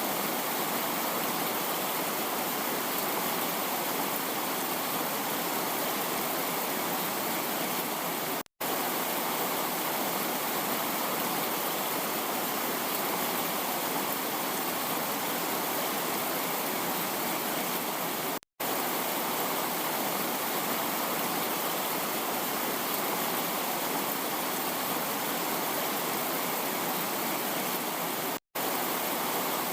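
Heavy rain falling in a steady hiss, with no distinct drops or thunder. Three times, about ten seconds apart, it cuts to silence for a split second where the recording loops.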